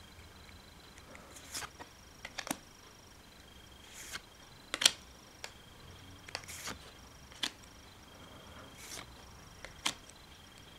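Pokémon trading cards handled in the hand: quiet sliding swishes as cards are pulled across the stack, and a sharp card snap every two to three seconds as each one is flipped to the back.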